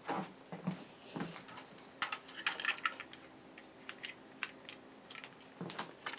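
Plastic Lego pieces clicking and rattling as a brick-built Lego car is picked up and handled and a small piece is fitted on. A scatter of light clicks, thickest about two to three seconds in.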